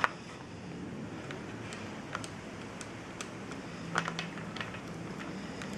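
Scattered light clicks and taps of screws and parts of a car door lock assembly being handled, with a sharper click at the start and another about four seconds in.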